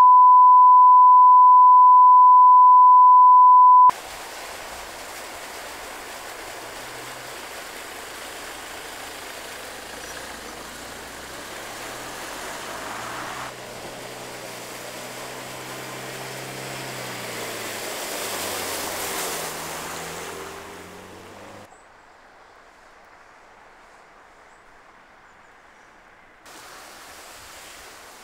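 A steady 1 kHz line-up test tone over colour bars for about four seconds, cutting off abruptly. Then a car driving slowly through deep floodwater, its engine note and the hiss of its spray building to a peak and fading out about twenty seconds in. Quieter outdoor background follows.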